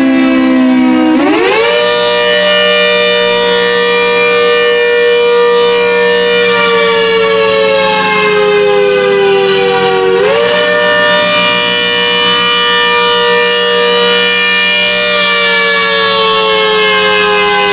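ACA Hurricane rotating-horn civil defense siren sounding a wail, the attack signal. Its pitch rises quickly about a second in, sinks slowly over the next nine seconds, then rises again about ten seconds in and sinks slowly once more.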